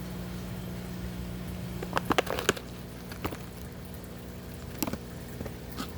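A pet bass feeding, with sharp splashes and clicks at the water: a quick cluster about two seconds in and single ones later. A steady low hum runs underneath.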